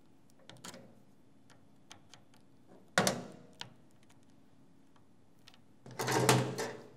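A small screwdriver clicking and scraping against the stamped-steel linkage of a record player's changer mechanism: scattered light ticks, a sharp metallic click about three seconds in, and a louder scrape lasting about a second near the end.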